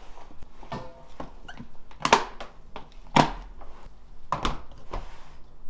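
Clicks and knocks of a plastic food-storage container's lid being pressed down and clipped shut, a string of short sharp knocks with the loudest about two and three seconds in.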